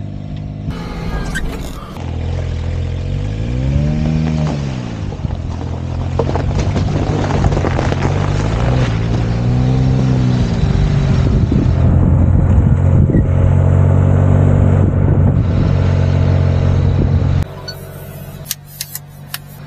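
Supercharged 660cc Daihatsu Hijet mini truck engine running hard, its pitch rising and falling twice as it revs up and back off, then dropping away suddenly near the end.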